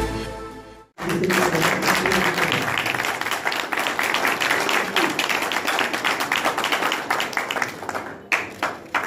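Audience applauding with a steady patter of many hands clapping, thinning near the end. A musical jingle fades out just before it.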